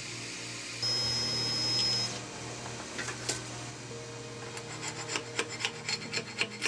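A hand rubbing across a 3D printer's textured build plate in a quick series of short scrapes, about four a second, near the end, after small printed plastic parts are lifted off it. Earlier, a steady high whine lasts about a second, and there is a single click.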